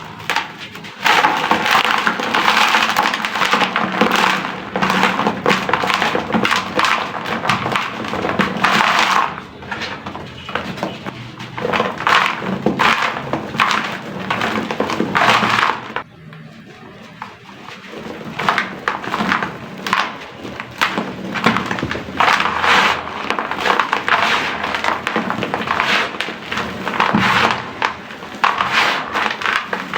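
Dry, crispy sand-cement chunks crumbling into a tub of water with dense crackling and crunching. It comes in long bursts, with a short quieter lull about sixteen seconds in.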